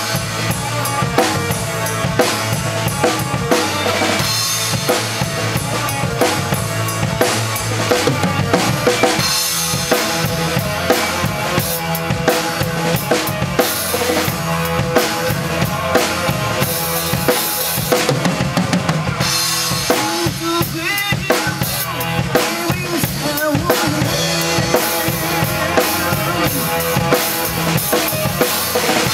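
Acoustic drum kit played live, with snare, bass drum and cymbal hits, improvised along with a recorded rock song that plays at the same time. The groove runs in 7/8 and 4/4.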